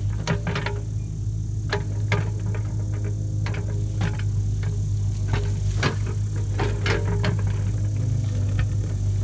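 Kubota KX71 mini excavator's diesel engine running steadily as the machine digs, with frequent irregular clanks, knocks and cracks from the steel bucket working into soil and roots.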